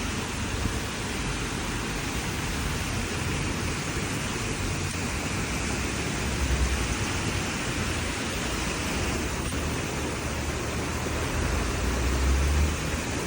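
Steady everyday outdoor ambient noise recorded from a window: an even hiss, with a low rumble that swells up twice, about six and twelve seconds in.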